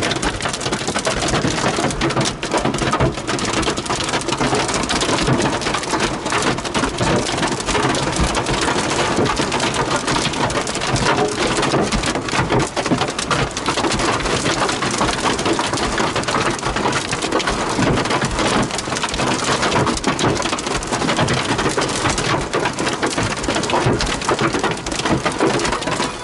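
Large hail and heavy rain hitting a vehicle: a dense, continuous clatter of many impacts on the roof and body, steady throughout.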